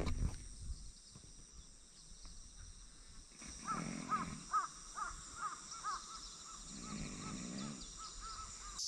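Crows cawing in quick runs of short calls from about three seconds in. Under them come two low snoring breaths about three seconds apart, a person snoring loudly in a nearby tent.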